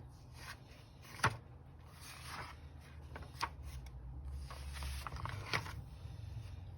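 Picture book being handled and its pages turned: faint paper rustling with three sharp taps, over a low steady hum.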